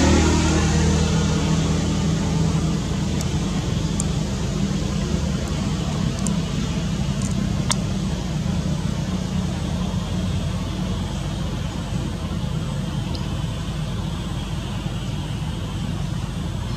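Steady low engine hum with a broad rushing noise over it, louder at the start and easing over the first couple of seconds, with a few faint clicks.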